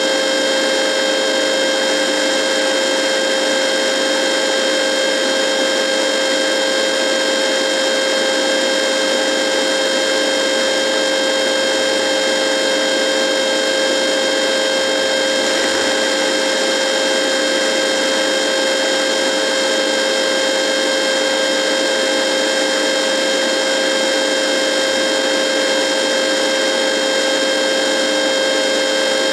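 Radio buzzing: a loud, unbroken electrical buzz with a strong steady tone and a row of higher overtones over a hiss, with no bass.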